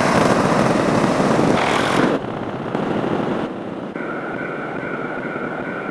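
A string of short sound effects cut together: a loud rushing noise that switches abruptly to other noises about two and three and a half seconds in, then a steady high two-note tone from about four seconds.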